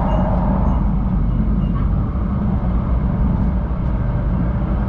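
Steady rumble and rush of a JR West 500 series Shinkansen running at speed, heard from inside the passenger cabin.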